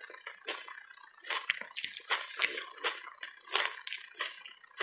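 Crunching and chewing of ice coated in thick matcha milk powder, bitten in big bites: irregular wet, sharp crunches two to three a second.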